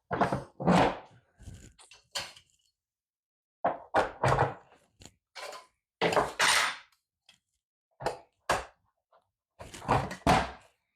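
A folding camp table being handled and turned over: a string of irregular thunks, knocks and short clatters, some of them loud, with pauses between them.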